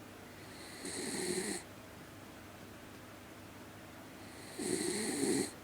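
Two snores, each just under a second long and about four seconds apart, each a low rasp with a hissing edge.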